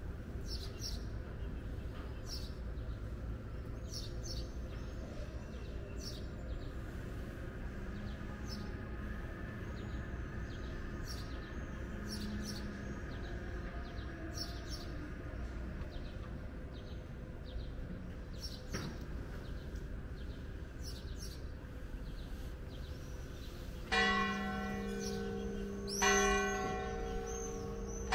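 Small birds chirping over a low steady town hum; near the end a church bell begins tolling, its strokes about two seconds apart, each ringing on.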